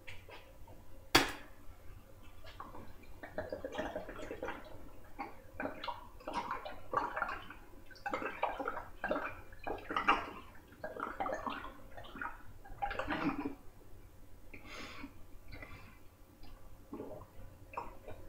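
Wine glugging out of a tipped-up glass bottle and being gulped down in quick, irregular swallows, busiest for about ten seconds and then fainter. A single sharp click comes about a second in.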